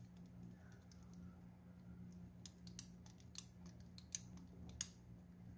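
Wire whisk stirring milk in a saucepan, its wires clicking against the pan: faint irregular ticks, then several sharper clicks in the second half, over a faint steady low hum.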